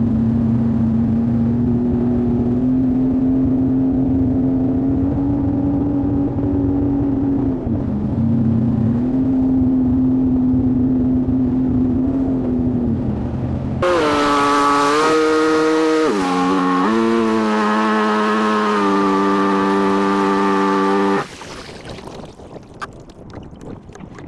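Jet ski engine running, its pitch dipping and rising again with the throttle. About two thirds through, the sound switches abruptly to a higher, shifting engine note under a loud hiss. This cuts off suddenly near the end, leaving quieter wind noise.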